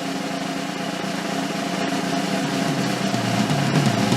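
A small motor running steadily, a hum with several steady tones over a noisy wash.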